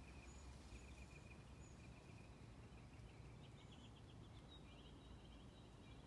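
Faint birdsong: a trill of rapid repeated notes, then a faster run of notes about halfway through, with a few short high whistles, over a low steady background rumble.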